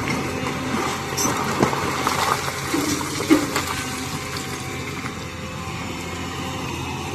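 Hydraulic excavator's diesel engine running steadily, with several sharp knocks in the first few seconds, the loudest about three seconds in.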